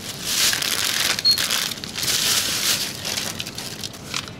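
Plastic bags and packaging rustling and crinkling as items are handled and bagged at a convenience-store checkout, with a short high beep from the checkout scanner about a second in.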